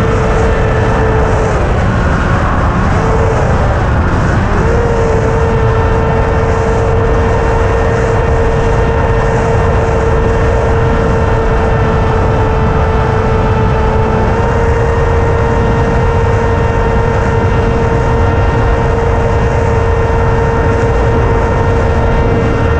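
Radio-controlled model aircraft's motor and propeller heard from the onboard camera: a steady whine over heavy wind rush. The pitch wavers with throttle changes for the first few seconds, then holds, rising slightly about two-thirds of the way through.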